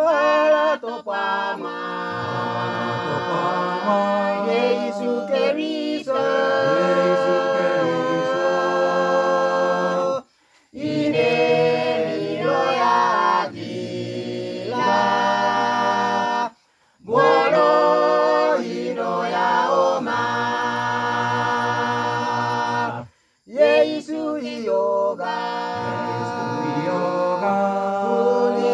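Mixed choir of men and women singing unaccompanied in the Misima language, holding long chords in several parts. The singing breaks off into brief silence three times between phrases.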